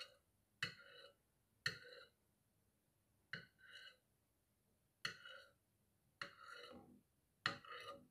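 A metal spoon scraping across a porcelain plate as it is dragged through sauce: six short, faint scrapes at uneven intervals, each starting sharply and fading quickly.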